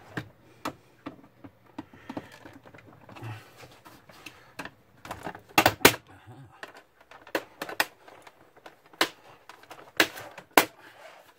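Plastic snap clips of a monitor stand's base cover clicking and cracking as it is prised with a screwdriver and worked loose by hand: a run of irregular sharp clicks, the loudest cluster about halfway through.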